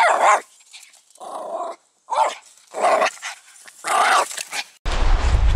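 Black dog giving about five short barks and growls, each under half a second. Near the end they stop and a steady low rushing noise begins.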